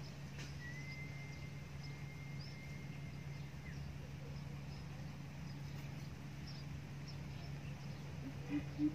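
Quiet outdoor ambience with a steady low hum and faint high chirps; about half a second in, a thin high whistle holds steady for about three seconds. Near the end a coucal starts a series of low, evenly spaced hoots, about three notes a second.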